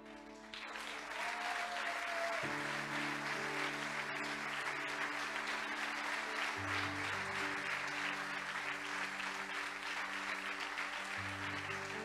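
A congregation applauding, starting about half a second in, over slow instrumental worship music with long held chords.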